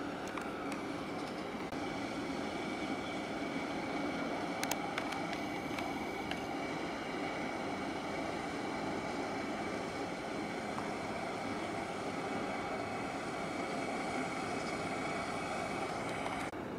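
Aluminium twin-hull passenger ferry with twin MTU V16 diesels and waterjet propulsion running as it passes close by: a steady drone with a thin high tone over it.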